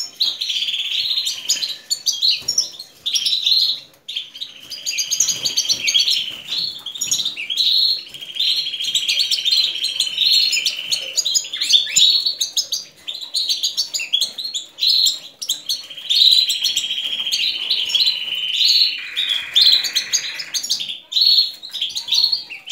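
Canaries singing: a dense stream of high chirps broken by several long buzzing trills, each lasting a couple of seconds.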